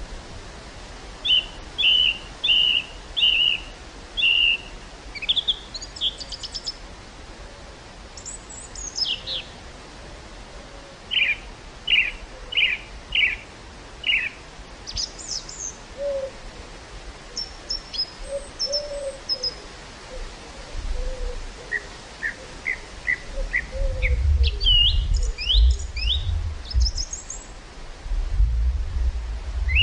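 Several wild songbirds singing and calling in quick series of short chirps and down-slurred notes over a steady hiss of wind. About two-thirds of the way through, wind gusts start rumbling on the microphone.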